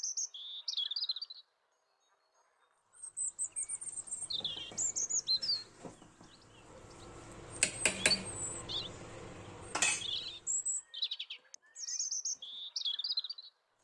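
Small birds chirping in short, high twittering phrases, the same phrase coming back near the end. In the middle there is a stretch of low clattering noise with a few sharp clicks.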